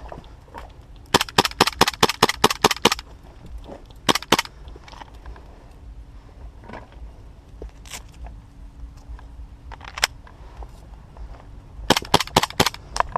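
Airsoft rifle firing: a quick string of about a dozen sharp shots, a pair of shots shortly after, and another rapid string near the end, with fainter scattered shots between.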